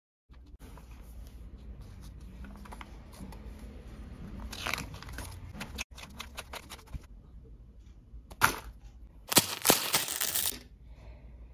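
Packaging being handled: plastic parts bags crinkling and paper instruction-booklet pages rustling, with louder crackling bursts about halfway and again near the end.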